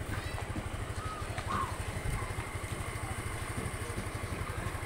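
An engine idling nearby: a steady, fast low throb that does not change.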